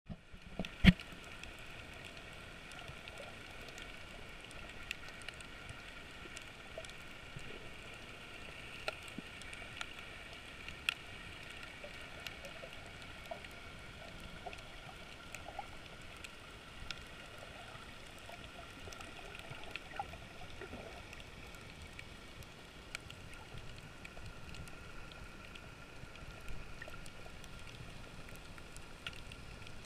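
Underwater ambience heard through a waterproof camera housing: a steady muffled hiss with scattered faint clicks, and one sharp knock about a second in.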